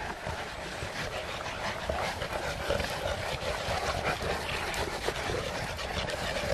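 A large pack of St. Bernard dogs being walked: dog sounds with many short clicks over a steady outdoor background.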